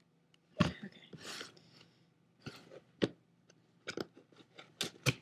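Cardboard box and its wrapping being handled and pried open by hand: scattered knocks, taps and clicks with brief crinkling rustles, the loudest knock less than a second in.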